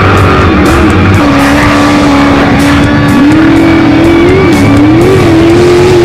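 Rock music with a steady drum beat, mixed with an off-road race truck's engine running at high revs.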